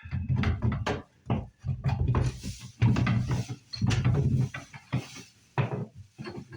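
Irregular wooden knocks, creaks and clatter, about a dozen sharp strikes over several seconds: a painted baseboard being worked loose from the stair wall with a pry bar.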